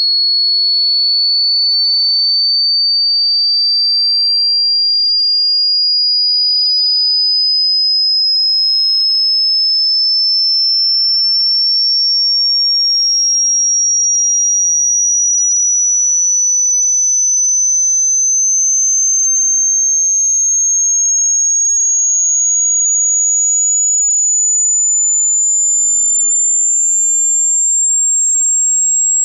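A single pure, high-pitched test tone of a hearing test, gliding slowly and smoothly upward in pitch by nearly an octave at steady loudness.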